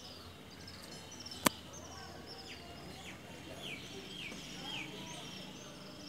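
Small birds chirping, with many short repeated chirps and a run of quick falling notes about twice a second through the middle, over a steady low background hum. A single sharp click about a second and a half in.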